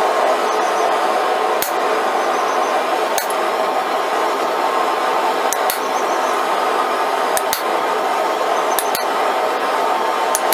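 Hammer striking a chisel to cut lines across the hot steel of a forged scorpion's body on an anvil: about nine sharp metallic strikes, one every second or two and some in quick pairs, over a steady loud roar.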